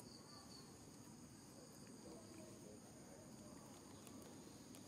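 Near silence with a faint, steady high-pitched insect drone.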